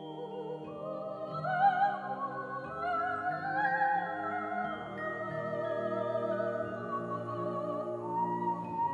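Background music: a slow melody with a wide vibrato over held chords.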